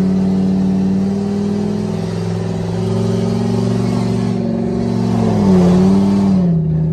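Engine and exhaust of a U-Haul box truck with its catalytic converters removed, running loud under acceleration as heard from inside the cab. Its drone climbs slightly, then dips and comes back up about five and a half seconds in.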